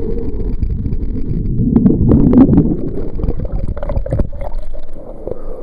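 Muffled underwater rushing and bubbling of air around a rising inflated lift bag, with gurgling and sharp splashy crackles about two to four seconds in as the camera nears and breaks the water's surface.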